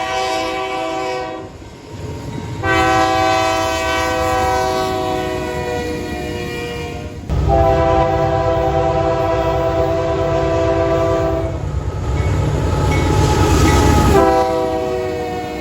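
Multi-chime air horn of a train sounding a series of long blasts, each a chord of several steady notes held for seconds at a time, over the low rumble of the train.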